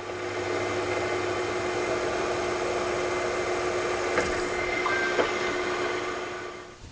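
Milling machine spindle running with a small drill bit, drilling a set-screw hole into a metal sleeve: a steady motor hum with a constant whine that fades out near the end.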